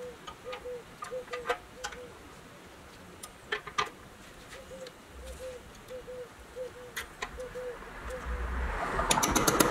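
Light clicks of toy wheels being turned and handled on steel axles, then, about nine seconds in, a fast run of sharp hammer taps on a setting tool driving an axle cap onto the end of a steel axle.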